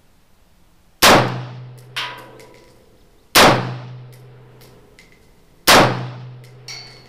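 AR-15 rifle firing .223 rounds, three single shots about two and a half seconds apart, each with a ringing tail. A lighter metallic clink comes about a second after the first shot.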